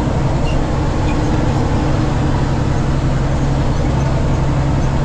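Silage truck's engine and road noise heard from inside the cab while driving, a steady drone.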